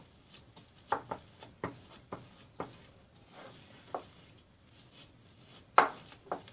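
Silicone spatula pressing and scraping crumbly coconut dough against a glass mixing bowl: several short knocks and scrapes at irregular intervals, the loudest near the end.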